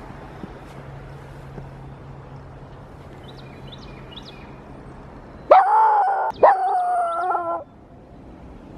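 Dog howling twice, a short howl then a longer one, about five and a half seconds in, the way a hunting dog bays when set off by the scent of fresh animal tracks.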